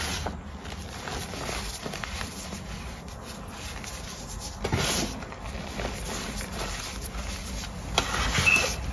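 Hands squeezing and rubbing loose gym chalk powder, with louder crushes about halfway through and again near the end.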